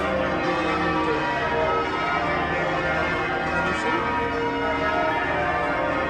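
Change ringing on St Paul's Cathedral's ring of twelve church bells, whose heaviest bell weighs over three tonnes. Many bells sound over one another in a steady, continuous peal.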